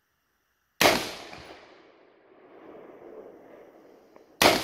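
Two rifle shots from a 5.56 AR-style rifle, about three and a half seconds apart, each trailing off in a long echo.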